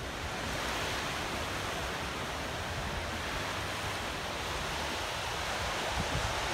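Atlantic surf breaking and washing up a sandy beach, heard as a steady, even hiss of water.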